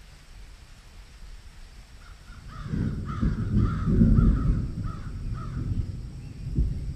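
A bird calling over and over in quick, short calls, starting about two seconds in and dying away after about five seconds. Under it, a loud low rumbling noise starts about two and a half seconds in and is loudest around the middle.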